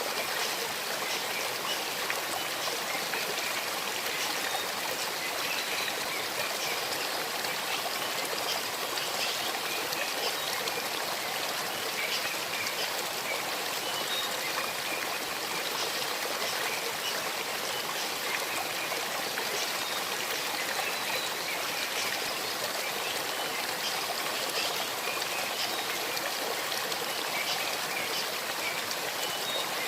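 Small stream flowing over river stones: a steady babbling rush of water with many small trickles and splashes throughout.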